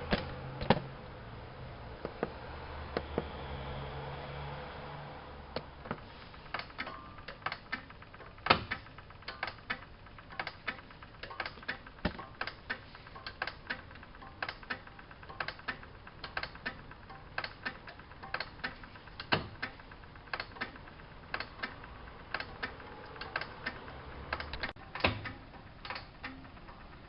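ALASKA WA8200 E washing machine making irregular sharp clicks and light knocks, about two or three a second, with a low motor hum in the first few seconds.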